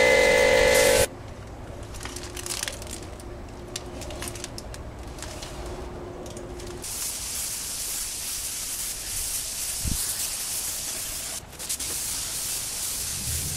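Music cuts off about a second in; after a quieter stretch with a faint steady hum, an air-fed paint spray gun hisses steadily from about seven seconds on as it sprays red paint.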